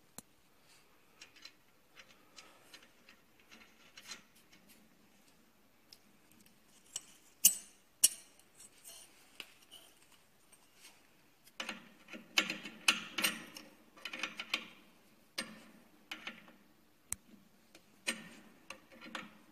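Clicks, knocks and rattles of metal and plastic parts being handled and fitted as a pedal is mounted on an air bike's crank arm. Scattered single clicks, a sharp knock about a third of the way in, and a busier run of clicking and rattling in the second half.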